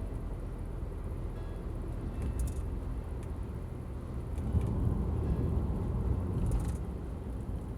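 Low road-vehicle rumble, a steady drone of engine and tyre noise that swells louder for a couple of seconds midway and then eases back.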